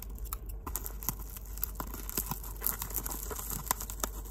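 Plastic bubble wrap crinkling and crackling as it is pulled apart by hand and cut open with scissors, with many small sharp crackles scattered throughout.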